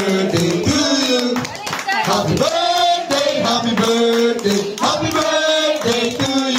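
A group of people singing together over karaoke music, with hands clapping along.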